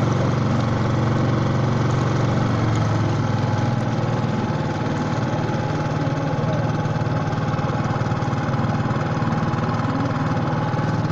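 4 hp Tohatsu four-stroke single-cylinder outboard motor running steadily and pushing a square-back canoe along, its note shifting slightly about three seconds in.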